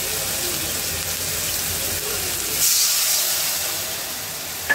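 Onion and spice masala sizzling in a hot metal kadai; about two and a half seconds in, a splash of water hits the pan and sets off a loud burst of hissing steam that dies back to a quieter sizzle. The water is added to keep the spices from burning. A short sharp clink near the end.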